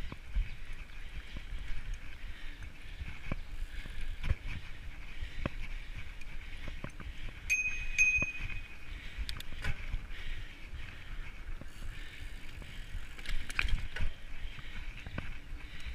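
Mountain bike riding fast down a dirt singletrack: a steady rush of tyre and trail noise with frequent knocks and rattles from the bike over bumps. A short high squeal sounds twice about halfway through.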